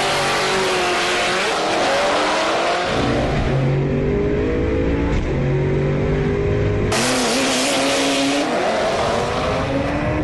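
Drag-race car's engine at full throttle, accelerating hard down the strip, its pitch climbing steadily. The sound changes abruptly about seven seconds in and keeps climbing after.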